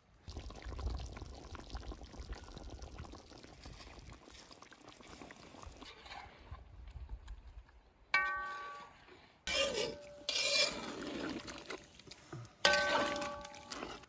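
Metal lid of a cauldron over a wood fire clanking and ringing twice, about eight seconds in and again, loudest, near the end. Between the two clanks come loud hissing bursts from the hot pot as it is opened, after a stretch of low rustling and handling noise.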